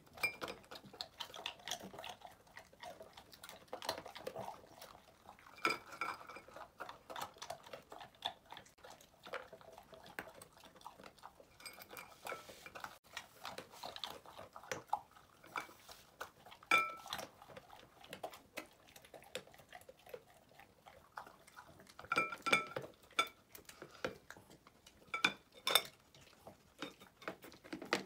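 Dogs eating and licking from ceramic bowls: irregular clinks and knocks of tongue and muzzle against the dishes, some with a short ringing tone. The loudest clinks come about two-thirds of the way through and again near the end.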